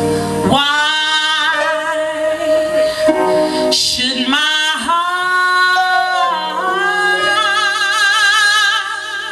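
A woman singing a gospel hymn live with long, sliding held notes and vibrato, over keyboard accompaniment. Her voice comes in about half a second in.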